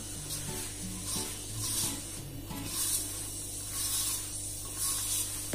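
Hand rubbing and mixing dry wheat and pearl-millet flour with ghee in a steel bowl, a soft swishing that swells about once a second, over quiet background music.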